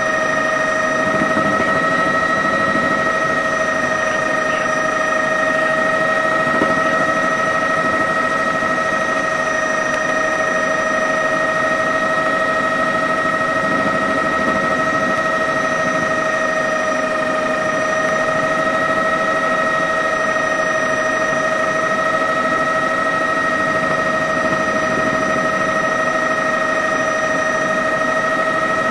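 Helicopter running steadily, heard from on board: a constant high whine over an even rushing noise.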